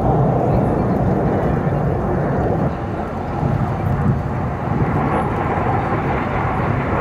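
Jet noise from the Blue Angels' F/A-18 Super Hornets flying over: a steady rumble with no distinct tones, growing brighter about five seconds in as the jets come nearer.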